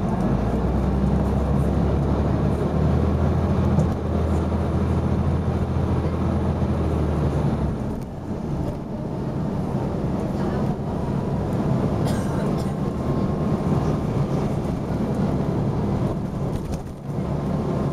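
Dennis Arrow double-decker bus engine heard from inside the bus, working hard with a deep steady drone. The drone drops away about eight seconds in, and the engine runs on with road noise.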